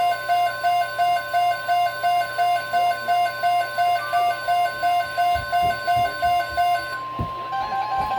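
NOAA Weather Radio's steady 1050 Hz warning alert tone, with a weather radio receiver's alarm beeping about three times a second over it. The beeping stops about seven seconds in while the steady tone carries on.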